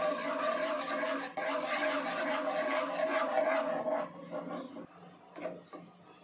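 A metal ladle stirring and scraping a liquid inside a non-stick saucepan, with a ringing tone from the pan. The stirring stops about four seconds in, and one short tap follows.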